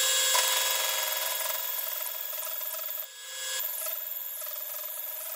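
Line boring machine cutting steel: the tool on the turning boring bar shaves the weld-built-up bore of a Caterpillar 637 hitch. It makes a steady, high-pitched scraping with several ringing tones, which dips briefly about three seconds in and then carries on.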